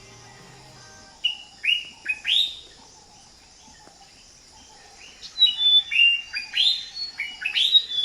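A bird singing: a phrase of four loud notes, each sweeping sharply up in pitch, then after a pause of about two and a half seconds a longer run of similar rising notes.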